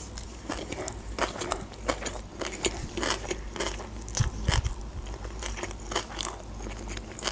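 A person chewing a mouthful of sushi roll coated in red fish roe: wet chewing with many small clicks and crunches, and a soft low thud about four seconds in.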